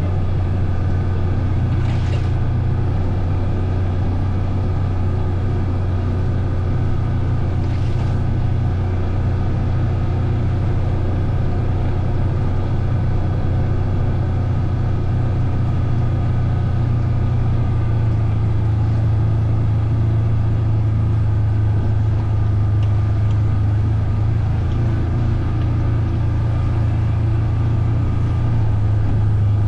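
A vehicle engine running at a steady speed, a continuous low drone with small shifts in pitch. Two faint clicks come about two and eight seconds in.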